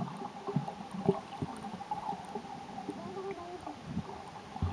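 Muffled underwater sound of a snorkeler moving in the sea: water sloshing and gurgling with irregular dull knocks, heard through a submerged camera.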